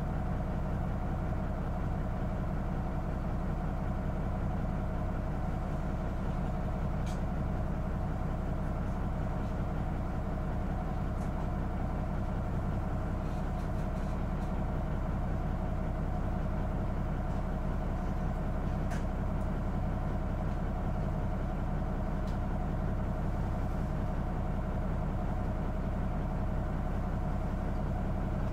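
Mitsubishi Fuso Aero Midi (TKG-MK27FH) city bus under way, heard from inside the cabin: a steady diesel engine drone with road noise, and a few faint clicks and rattles.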